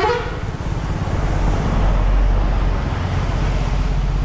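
Wind rushing over the microphone of a moving KTM motorcycle, with the bike's engine and road noise underneath; the low rumble swells about two seconds in.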